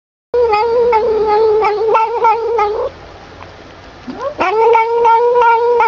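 A cat giving two long drawn-out meows: the first held at a steady pitch for over two seconds, the second, after a short pause, rising in pitch and then held.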